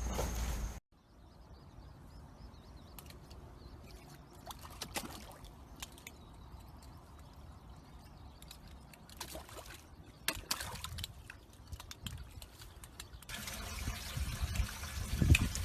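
Water splashing and trickling, with scattered short splashes and clicks. Near the end a steadier rush of water sets in.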